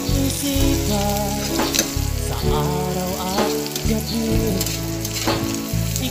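Sliced longganisa sausage sizzling in oil in a wok, stirred with a spatula that scrapes and taps the pan now and then. Background music with a low bass line plays underneath.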